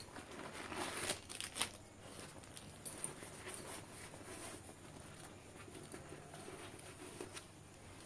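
Nylon fabric of a backpack rustling and crinkling as it is handled, with a few sharper clicks and scrapes, the loudest about a second in.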